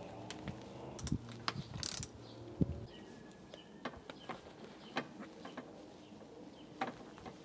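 Hands fitting a round trim cap onto a leather-covered seat armrest: a scattered series of small clicks and taps. A low steady hum underneath stops about three seconds in.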